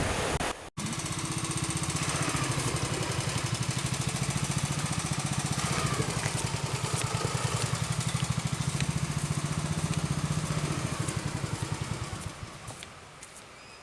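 An engine running at a steady, fast, even beat, starting just after a sudden cut under a second in and fading away about two seconds before the end.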